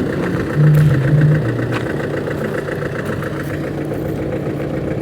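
An engine idling steadily with an even pulse, briefly louder about half a second in.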